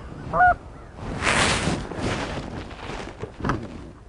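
A single short goose honk about half a second in. It is followed by a loud, scratchy burst of noise lasting under a second, then a few faint knocks.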